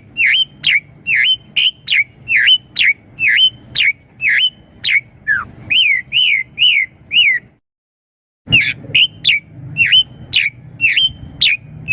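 Asian pied starling (jalak suren) calling: a fast run of loud whistled notes, each a short downward or dipping-then-rising slur, about two a second. About two-thirds of the way through it breaks off for a second of silence, then carries on.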